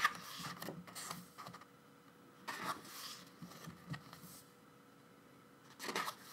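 Pages of an album photobook being turned and handled: short paper rustles in the opening second, again near three seconds and near the end, over a faint steady hum.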